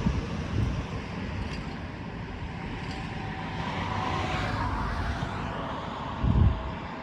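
Outdoor noise. Wind rumbles on the microphone in gusts near the start and again about six seconds in. In the middle, what sounds like a passing road vehicle swells and fades.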